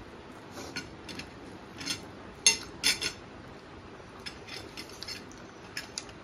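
Eating at a table: a string of short clicks and clinks from metal cutlery against ceramic plates, mixed with chewing of chicken wings. The loudest clinks come about two and a half and three seconds in, with lighter ticks after.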